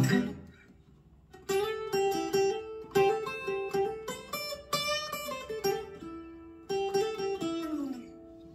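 Fender Acoustasonic Player Telecaster played through an old Crate amplifier, with the blend knob turned fully counterclockwise: a strummed chord dies away, then after a short pause come single picked notes and chords, with one note sliding down in pitch near the end.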